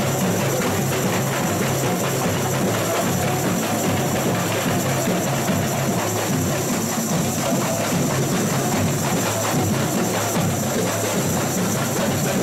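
Samba school bateria (drum section) playing a full samba groove: massed drums with tamborins and shakers in a dense, steady rhythm that does not let up.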